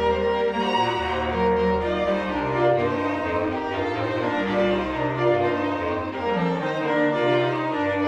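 Bass clarinet and string quartet (two violins, viola and cello) playing a contemporary chamber piece: held string notes above a low line that steps from note to note.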